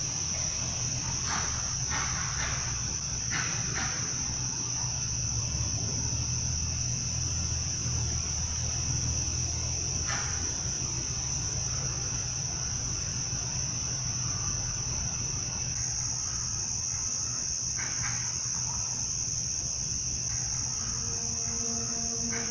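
A steady high-pitched chorus of crickets at night, with a low hum underneath and a few faint short rustles.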